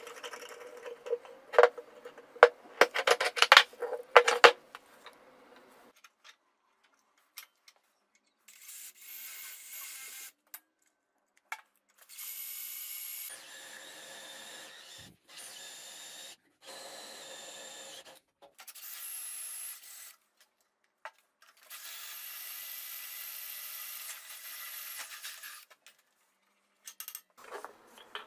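Clattering and knocking as a threaded steel rod and metal fittings are handled against a plywood board. Then a cordless drill bores into a steel part clamped in a bench vise, throwing off metal chips, running steadily in several separate stretches of a few seconds each. A few light clicks of parts being handled come near the end.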